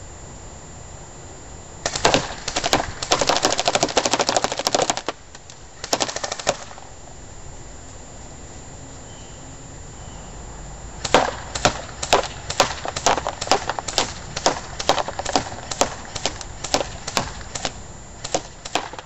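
JG SIG 552 airsoft electric rifle firing BBs into a paper target: a full-auto burst of about three seconds, a short burst about a second later, then a run of separate shots about three a second.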